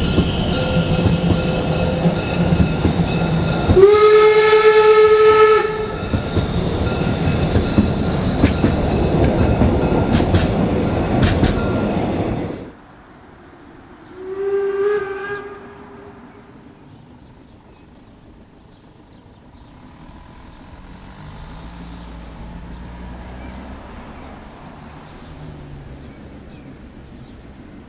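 A narrow-gauge steam train's carriages roll past close by, with wheel clatter and steady squealing. The locomotive's steam whistle blows loudly for about two seconds near the start. After a sudden cut, the same whistle sounds once more, shorter and distant, followed by the faint approach of the steam locomotive.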